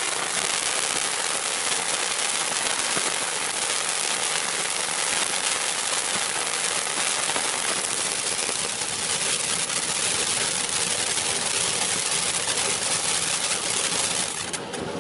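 Iron Man '5 Minute Safari' ground fountain firework spraying sparks with a steady hiss and dense crackling, dying down near the end.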